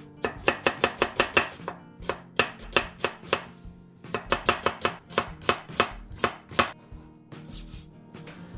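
Chef's knife slicing an onion on a plastic cutting board: rapid, sharp knocks of the blade against the board, several a second, in three runs with short pauses between them, stopping about two seconds before the end.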